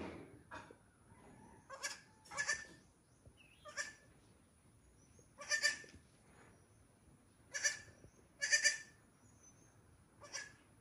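Young goat kid bleating, about seven short calls a second or two apart.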